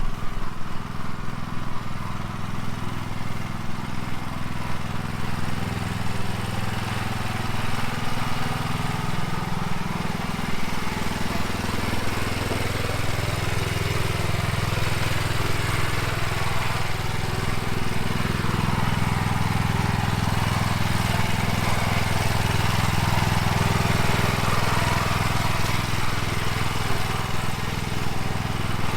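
Honda engine of a self-propelled branch chipper running steadily.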